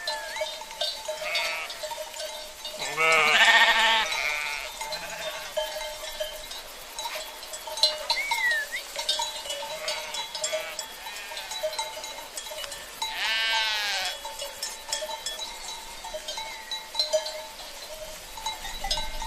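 Sheep and lambs in a pen bleating. Two long, loud bleats come about three seconds in and again about thirteen seconds in, with a few quieter bleats between.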